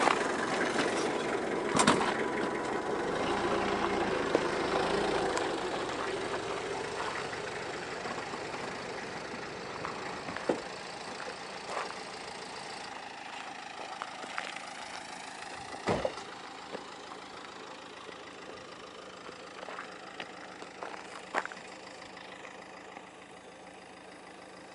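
A car engine running and the car moving slowly, heard from inside the cabin, growing steadily quieter. A few sharp knocks stand out, the loudest about two seconds in and again around the middle.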